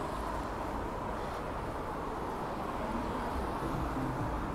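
Steady town-centre street background of road traffic, an even hum with no single sound standing out.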